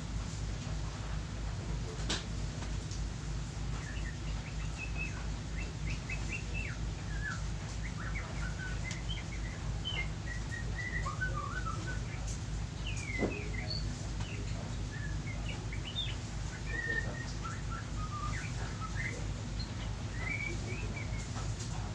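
Small birds chirping and twittering in short, scattered calls throughout, over a steady low hum with a fast even pulse. A single sharp click about two seconds in.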